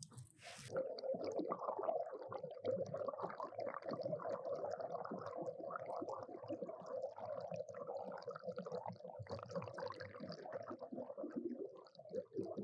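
Water sloshing and bubbling in an irregular crackle, with a steady hum underneath from about a second in.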